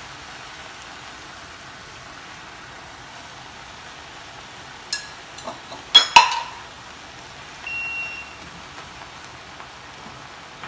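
Beef and vegetables sizzling quietly in a red enamelled pot on a gas burner, with a few sharp knocks as the spatula and pot are handled, the loudest about six seconds in.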